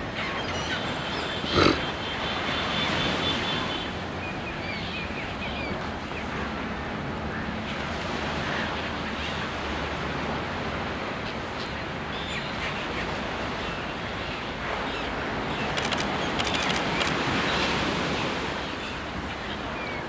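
Surf washing on a beach, a steady rush of noise, with one sharp knock about a second and a half in.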